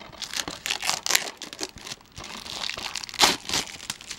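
Clear plastic shrink-wrap being peeled and torn off a DVD case: irregular crinkling and crackling of thin plastic, with one sharper crack about three seconds in.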